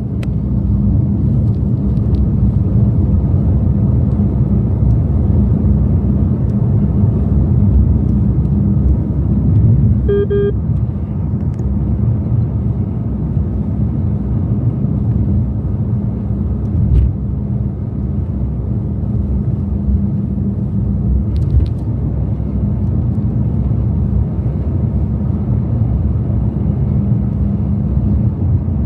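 Steady low rumble of a car driving on the road, tyre and road noise, with a short electronic beep about ten seconds in.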